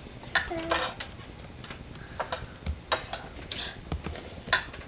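Irregular clicks and short scrapes of a tool digging into a homemade volcano model, with a brief child's vocal sound about half a second in.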